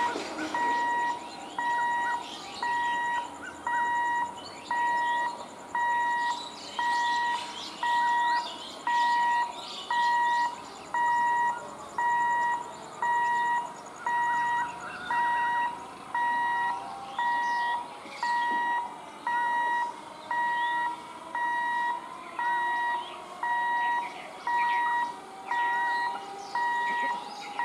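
An electronic alarm beeping steadily, about one beep a second, each beep sounding two pitches at once. Faint high chirps come over it, and in the second half a faint whine rises slowly underneath.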